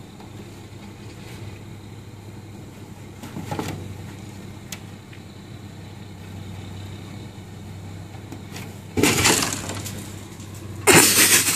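Cat scrambling down off a snow-covered car, its paws scraping and sliding on the frosted windshield: a short crisp scrape about nine seconds in and a louder one near the end, over a faint steady low hum.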